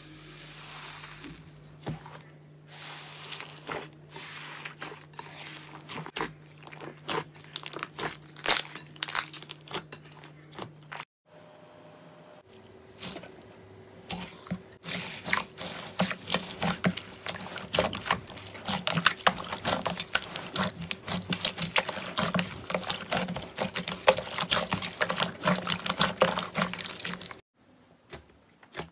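Slime being squeezed and worked by hand: wet clicks, pops and crackles in quick, irregular runs. About 11 seconds in it switches to a denser, louder crackling.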